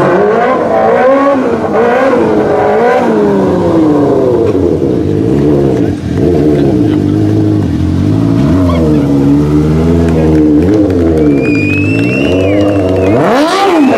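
Sport quad (ATV) engine revved hard again and again, its pitch rising and falling as the throttle is blipped while the quad is ridden on two wheels, with one deep rev-up near the end.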